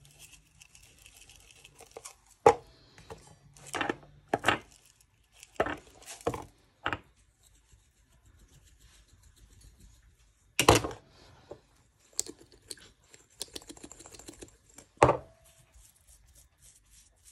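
Spice shakers shaken over a raw steak and handled on a kitchen bench: a series of about eight separate short rattles and knocks. The loudest comes about ten and a half seconds in.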